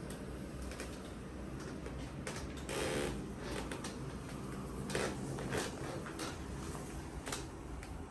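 Creaks and scattered clicks from a treatment table shifting under a patient being stretched, the loudest a rustling knock about three seconds in and a sharp click about five seconds in, over a steady low hum.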